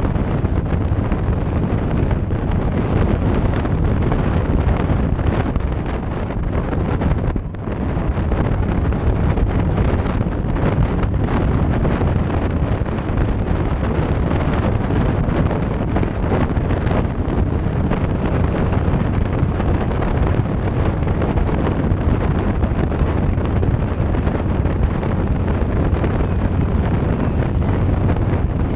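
Wind rushing over the microphone of a motorcycle-mounted camera at highway speed, over the steady low drone of the touring motorcycle's engine, with a brief lull about seven seconds in.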